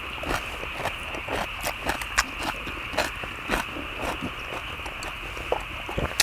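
Close-up eating sounds: several people chewing and smacking on lettuce-wrapped stir-fried pork and kimchi, with many short sharp clicks of chopsticks against the food and the iron lid, over a steady high hiss.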